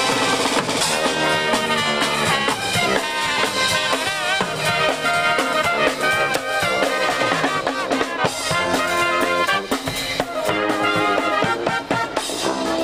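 Marching brass band playing as it parades: trumpets, trombones and sousaphones over snare drums, bass drum and crash cymbals.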